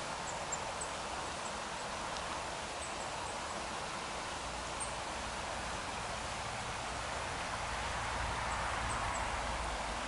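Steady woodland ambience: an even hiss with faint, short high peeps scattered through it. A low rumble swells in during the second half.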